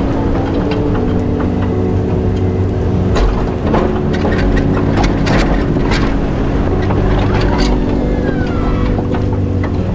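Chevy pickup's engine running under load as its Fisher plow blade pushes heavy wet snow. Scrapes and sharp knocks from the blade and snow come mostly in the middle stretch.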